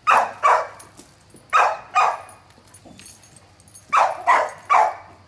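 Dog barking in short, sharp barks: a run of five over the first two seconds, a pause, then four quick barks near the end.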